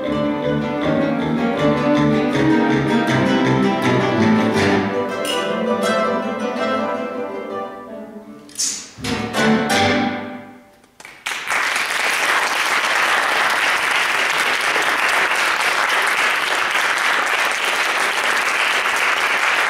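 Classical guitar orchestra playing the closing bars of a piece, with the last strokes a little before halfway. An audience then breaks into steady applause.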